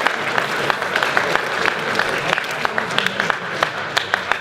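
Audience in a school assembly applauding, many hands clapping steadily.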